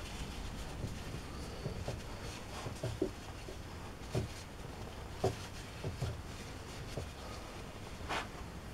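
Scattered light knocks and clicks of metal workshop tools and parts being handled, a few seconds apart, over a low steady background. No machine is running.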